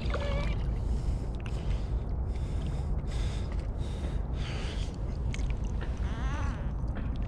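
Splashing and rustling as a blue catfish is pulled from shallow water into dry brush by hand, in several short bursts over a steady low rumble.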